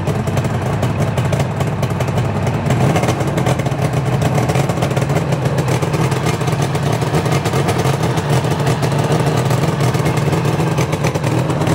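Suzuki GT550 air-cooled two-stroke three-cylinder engine, just rebuilt after a dead crankshaft and right piston, idling steadily through Sugaya long mufflers. Its oil-pump cable is pulled by hand to send extra oil through the fresh engine.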